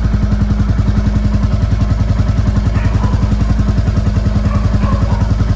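Royal Enfield Classic 350 single-cylinder engine running steadily in first gear on the centre stand, with an even, rapid thump of about ten beats a second. The rear wheel is spinning freely, with a slight noise from the chain or brake area that the owner puts down to water left after washing the bike.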